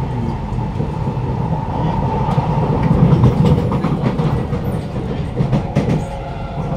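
Cabin noise inside a Kawasaki Nippon Sharyo C751B metro train running along the track: a steady rumble of wheels on rail with a thin steady whine and a few sharp clacks. It grows louder about three seconds in, then eases.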